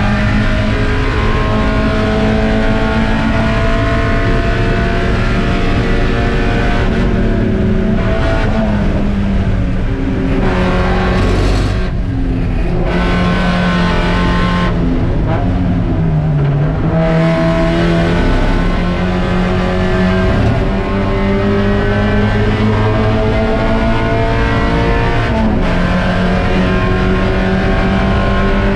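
Spec Miata race car's four-cylinder engine pulling hard, its pitch climbing slowly under load, then falling in steps around the middle as it downshifts for a corner, and climbing again, with a quick shift near the end.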